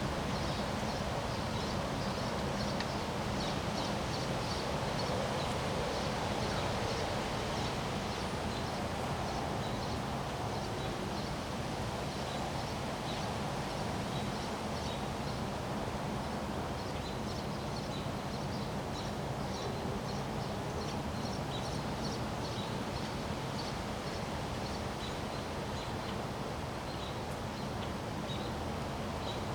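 Wind blowing steadily through trees, rustling the leaves, with birds chirping rapidly and continuously in the background.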